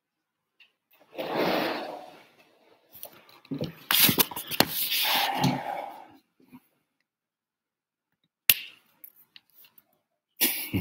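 Two stretches of rustling and handling noise with a few sharp clicks, separated by quiet gaps.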